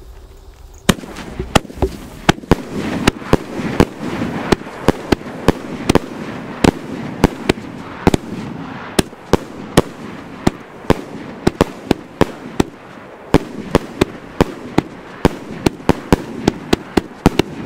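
'Super White Strobe' consumer firework battery (cake) firing: it starts about a second in, then sharp reports a few times a second over a continuous rushing noise of launches and bursts.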